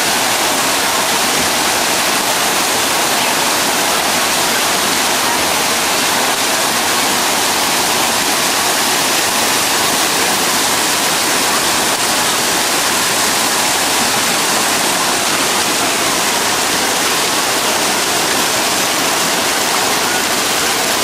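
Steady, loud rush of spraying and splashing water from the fountains of a splash-pool play area.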